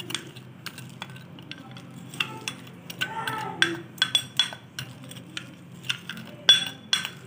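Metal spoon stirring a cocoa, sugar and milk mixture in a glass bowl, clinking and scraping against the glass in irregular taps. The loudest clinks come near the end.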